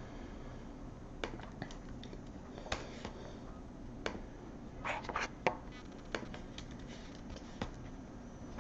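Faint scattered clicks and taps of fingers handling a thick clear plastic trading-card holder, over a low steady hum.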